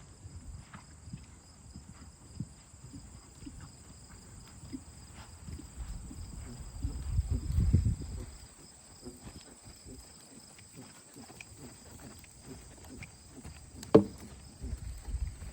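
Insects chirring steadily in two high, even tones, over scattered soft low thuds. A low rumble swells around seven seconds in, and a single sharp knock comes near the end.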